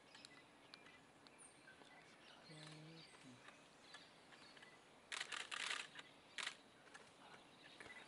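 Quiet outdoor ambience with faint distant bird calls, a short low pitched call about two and a half seconds in, and two brief rustling noises around five and six and a half seconds in.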